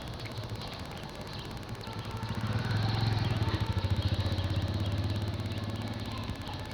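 A vehicle engine running with a low, pulsing hum that grows louder about two seconds in and then fades away near the end.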